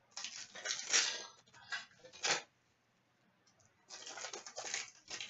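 A trading-card pack wrapper crinkling as it is torn open and the cards are handled. It comes in two spells of rustling, the second starting about four seconds in, with a quiet gap between them.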